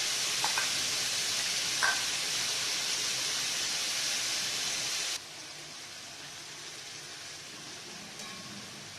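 Steady hissing from a pot cooking on a high-pressure gas burner, with a couple of faint utensil taps early on; the hiss drops abruptly to a much quieter level about five seconds in.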